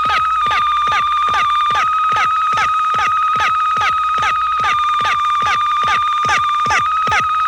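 Electronic sci-fi sound effect: a steady high tone held throughout, with quick falling sweeps pulsing under it a few times a second.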